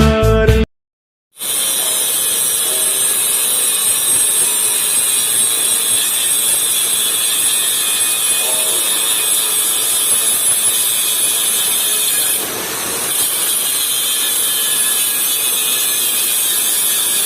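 Steady, loud, high-pitched hissing metalworking noise from work on a steel boiler. It starts about a second in, right after the music cuts off, and dips briefly about twelve seconds in.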